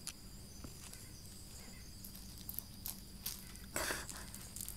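Scattered crunches and scuffs on loose pea gravel, the loudest a short crunch about four seconds in, over a steady high insect drone.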